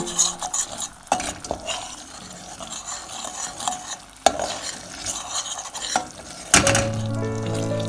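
A cooking utensil stirring and scraping food in a pan while it sizzles, with a few sharp knocks of the utensil against the pan. Music comes in near the end.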